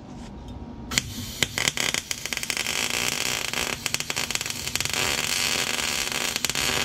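Wire-feed welder arc crackling and spitting as a weld bead is laid on a steel bracket. It starts about a second in with a few short bursts, then runs steadily.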